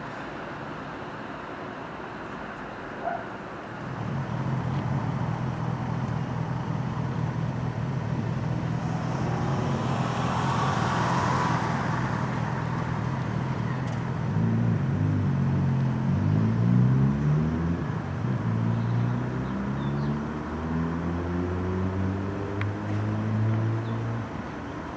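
Class 67 diesel locomotive's V12 two-stroke engine running steadily as the train approaches, with a brief higher rushing sound about ten seconds in. From about two-thirds of the way through, the engine's pitch rises and falls.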